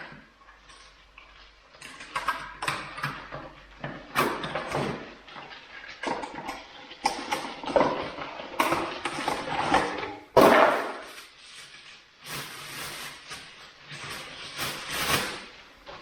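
Packaging and cordless tools being handled: rustling, scraping and a string of irregular knocks and clicks, with the loudest knock about ten and a half seconds in.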